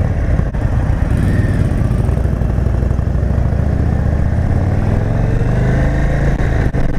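Indian Super Chief Limited's Thunder Stroke 116 V-twin pulling away from a stop and accelerating, its engine note rising gradually. The bike is in tour mode, which dulls the throttle response.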